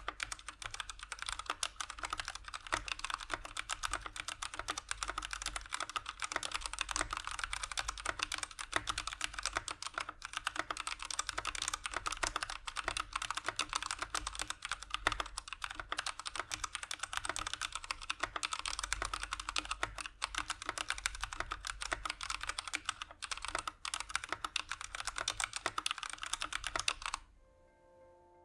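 Fast, continuous typing on a Keychron K6 aluminum 65% mechanical keyboard with stock Keychron Brown switches, a dense run of keystroke clicks that stops about a second before the end.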